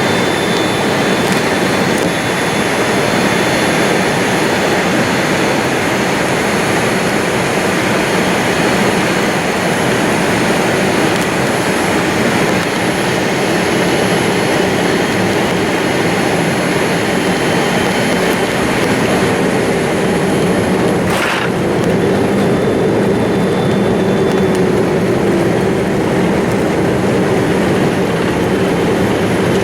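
Boeing 787-8 jet engines and airflow heard from inside the passenger cabin as a loud, steady noise, with a single sharp click about two-thirds of the way through.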